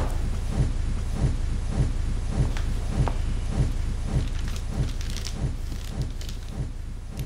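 Low rumbling drone with a deep single bass pulse about every 0.6 seconds, slowly fading toward the end: a pulsing film-score sound bed.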